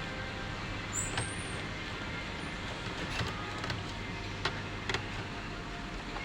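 Scattered light clicks and taps from handling the parts of an HP all-in-one PC being taken apart, over a steady low background hum.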